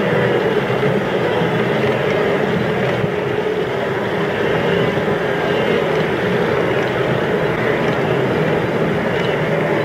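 Steady din of a large herd of wildebeest and zebras crossing a river, their hooves and splashing blending into one continuous noise.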